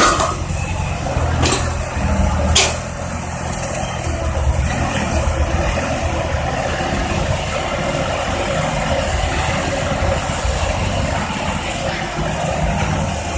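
Heavy diesel machinery running steadily, with two sharp clanks about one and a half and two and a half seconds in.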